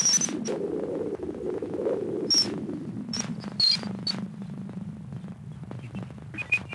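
Strange radio noise presented as radio emissions from Ganymede: crackling static with scattered sharp clicks and short high pips over a steady low hum. A warbling noise band sits above the hum for the first three seconds or so, then fades. Near the end, short mid-pitched tones begin.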